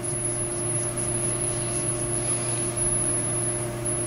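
A steady low hum with a constant hiss underneath, unchanging and without any distinct event.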